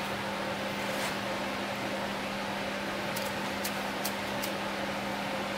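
Steady mechanical hum with a low tone, joined a little past halfway by four faint light ticks.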